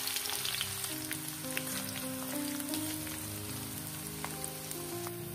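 Sliced shallots frying in hot oil in a wok: a steady sizzle with scattered crackles, with background music playing held notes.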